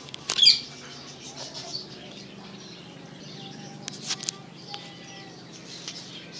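Birds chirping outdoors, with one loud, sharp call about half a second in and a few short sharp clicks around four seconds.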